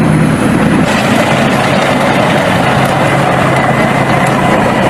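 Tank engine sound running steadily at a constant level, with a hiss over it.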